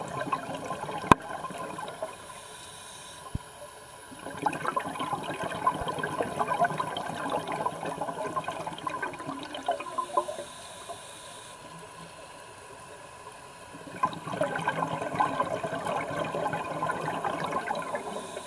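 Underwater bubbling from a scuba diver's exhaled breath through the regulator: crackling bubble streams in long stretches, with quieter gaps between. A single sharp click about a second in.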